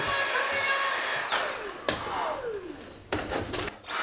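Handheld vacuum cleaner running, then switched off about a second in, its motor winding down in a falling whine; a few sharp clicks and knocks follow.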